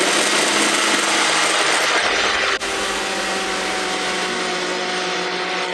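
Nutri Ninja personal blender's motor running at full speed, blending a thick green smoothie. It is a loud, steady whirr with a constant hum, and it dips briefly about two and a half seconds in.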